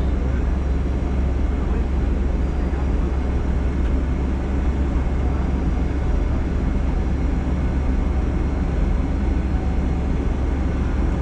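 Steady cabin noise inside a Boeing 757-200 on the ground after landing: a continuous low rumble with an even hiss of the aircraft's engines and air systems.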